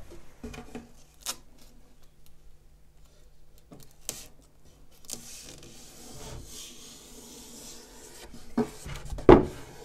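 Masking tape being pressed and rubbed down by hand along the inside of a pine drawer: scattered light taps and rustles, a stretch of rubbing about five seconds in, and a sharper knock against the wood near the end.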